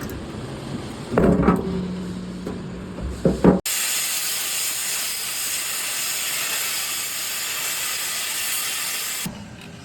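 Irregular knocks and clanks with a brief steady hum, then a loud, even hiss that cuts in abruptly about three and a half seconds in and stops abruptly shortly before the end.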